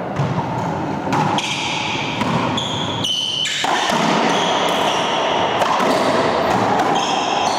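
Racquetball rally in an enclosed court: a series of sharp, echoing ball impacts as the ball is bounced, served and driven off racquets and walls, with a few short high squeaks.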